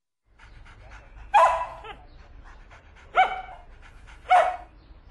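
Samoyed dog giving three short barks, each a loud woof with a falling pitch.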